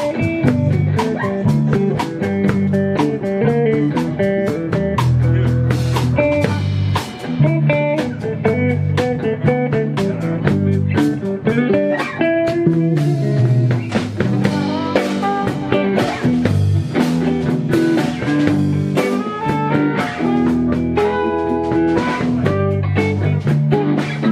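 Live blues band playing an instrumental passage: electric guitars over a drum kit.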